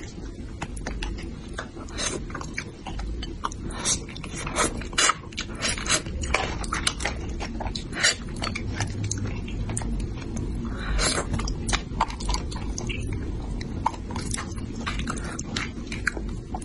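A person chewing and smacking on spicy braised fish close to the microphone, with many short mouth clicks and smacks scattered throughout.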